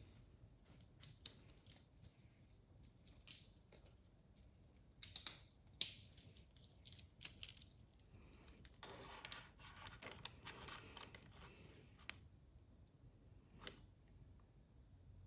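Wristwatches being handled: scattered small metallic clicks and clinks, the sharpest about five to seven seconds in, with a few seconds of rustling and scraping later on.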